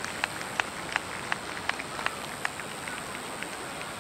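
Spectators applauding as the fireworks end: one person close by claps steadily about three times a second, with scattered fainter claps from others. The clapping thins out and dies away about halfway through.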